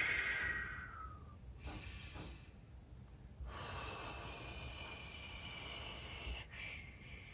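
A man breathing deeply and audibly, as in a guided breathing exercise. The loudest breath is at the start and fades out about a second in, a short faint breath follows around two seconds in, then a long drawn breath runs from about three and a half seconds until shortly before the end.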